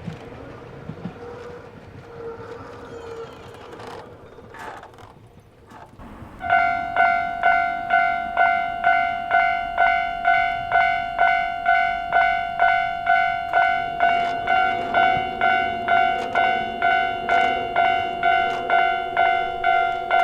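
Japanese level-crossing warning bell starting up about six seconds in: a loud, ringing electronic 'kan-kan' strike repeated about twice a second, signalling an approaching train. A lower steady tone joins it about two-thirds of the way through.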